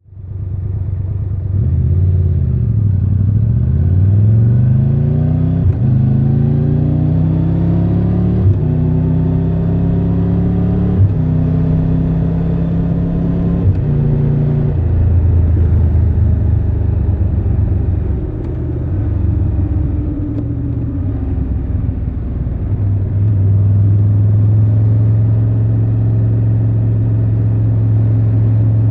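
Triumph Tiger 1200 Rally Pro's three-cylinder engine pulling away and accelerating through the gears, the pitch climbing and dropping briefly at four quick upshifts. It then eases off, the pitch falling, and settles into steady running.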